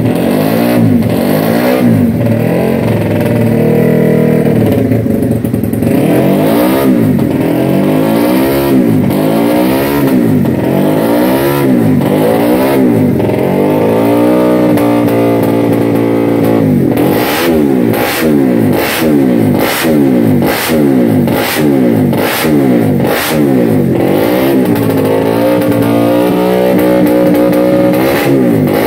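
Race-tuned Honda GTR150 single-cylinder motorcycle engine being revved on the stand, the throttle blipped again and again so the pitch climbs and drops about once a second. Sharp cracks come between the revs through the middle and later part.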